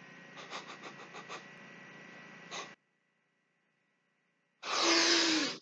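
A man's loud breathy exhale with a falling voiced tone, about a second long, near the end. Before it, steady background hiss with a few soft knocks in the first second and a half, then a short stretch of silence.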